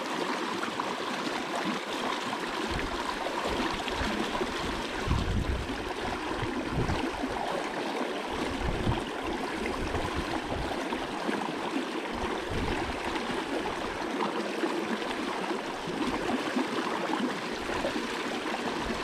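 River current rushing and splashing around half-submerged logs: a steady, unbroken flow of water, with a few low rumbles partway through.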